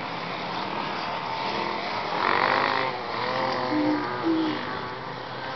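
Distant enduro motorcycle engines revving across the valley, their pitch stepping up and down as the riders work the throttle and gears. A brief louder rush of noise a little after two seconds in.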